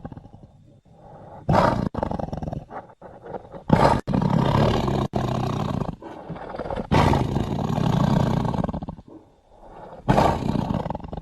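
Designed sabre-toothed cat (Smilodon) creature sound effects: a string of loud big-cat roars, each lasting a second or two, separated by short pauses.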